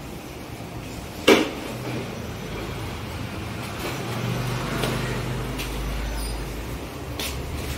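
A sharp metallic clank about a second in, then a low vehicle engine rumble that builds from about four seconds, with a few light clicks.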